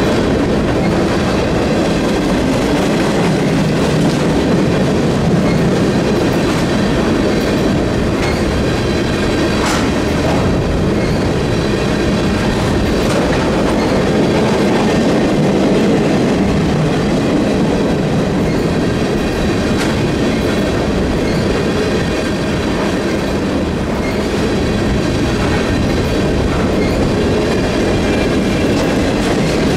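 Empty flatcars of a freight train rolling past at speed close by: a steady loud rumble and rattle of steel wheels on the rails, with a sharp click now and then.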